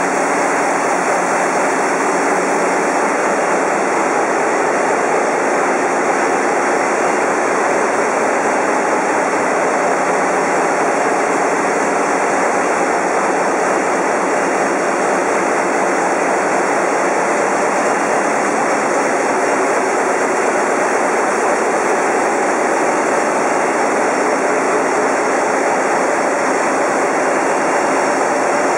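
Engine-room noise of a large ship's multi-cylinder diesel engines running: a loud, dense, unbroken din that holds level throughout.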